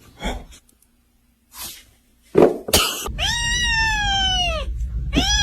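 Cat meowing: after a few short noisy bursts, a long drawn-out meow about three seconds in that drops in pitch as it ends, then a second long meow starting near the end.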